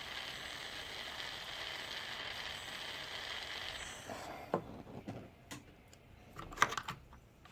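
Steady hiss of a soldering torch flame heating silver, which shuts off a little past halfway; then a few light clinks and knocks of metal tools and the silver piece being handled.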